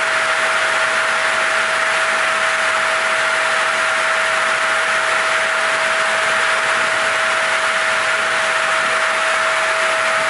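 Lignuma TR 800 circular-blade sawmill running with no log in it: its motors and blades spin at a steady speed, giving a constant whine over a loud hiss.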